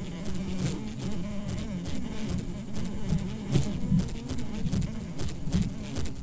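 Flies buzzing: a wavering low hum, with many sharp clicks scattered over it.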